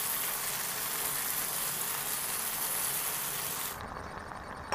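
Steady hiss of flat beans in mustard-poppy paste cooking in a hot pan, with the high part of the hiss falling away near the end.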